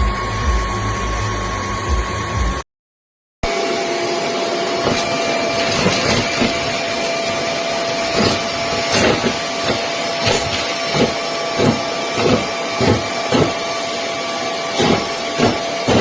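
Kenmore DU4399 Featherlite bagless upright vacuum running with a steady motor whine. It cuts out briefly about three seconds in and comes back at a lower pitch, and in the second half short knocks or rattles repeat about twice a second.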